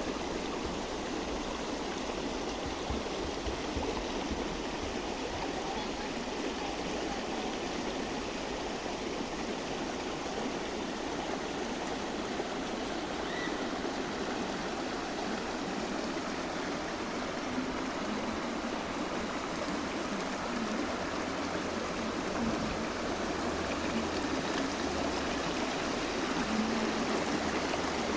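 Running water flowing steadily.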